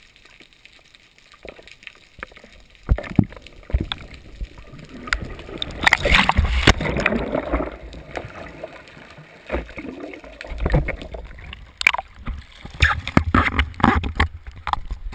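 Water splashing and gurgling around a kayak and paddle in irregular bursts, with a longer stretch of splashing a few seconds in.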